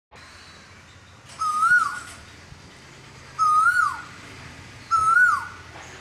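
Asian koel (koyal) calling: three short whistled notes, each rising then dropping in pitch, about one and a half to two seconds apart.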